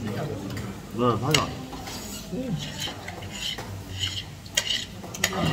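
Metal chopsticks clicking and scraping against tableware while eating, in scattered irregular clicks, with a couple of short murmured vocal sounds.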